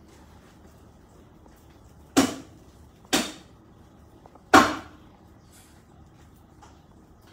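Three brief rubbing knocks of a phone being handled and turned, each starting suddenly and fading within half a second, the last the loudest.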